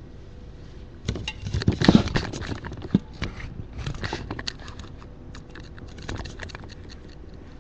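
Clusters of crackling clicks and pops close to the microphone, loudest around two seconds in, with one single sharp pop about a second later: a neck being cracked.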